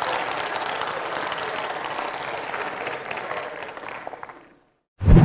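Audience applauding, dying away about four and a half seconds in. Near the end a short, loud, deep whoosh sound effect starts.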